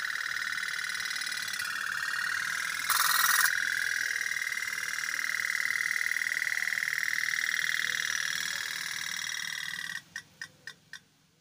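Toy pop-pop steam boat running on water: a fast, steady putt-putt from its little engine, which cuts out about ten seconds in, leaving a few separate clicks. A brief louder burst of noise about three seconds in.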